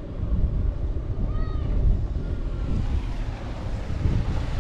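A cat meows once, short and rising then falling, about a second and a half in, with a fainter short call just after, over a steady low rumble.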